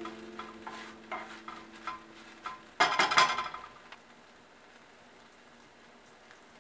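A spatula scraping and knocking against a nonstick frying pan as fried rice is stirred, in a few light strokes and then one loud scraping clatter about three seconds in. It is quiet after that.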